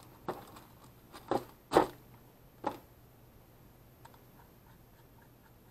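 Clear plastic bag crinkling in four short bursts as a handheld radio is pulled out of it, the third the loudest. Then faint small clicks as an antenna is screwed onto the radio.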